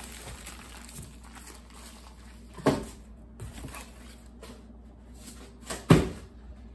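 Cardboard box and shrink-wrapped ammunition packs being handled: faint rustling, with two thuds about three seconds apart, the second one, near the end, the louder.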